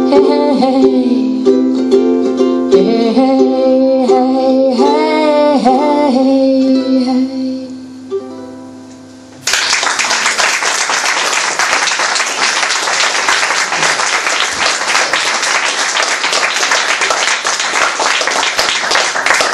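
Ukulele playing the closing bars of a song with wordless singing, the last chord dying away about eight seconds in. About a second later audience applause breaks out suddenly and carries on steadily.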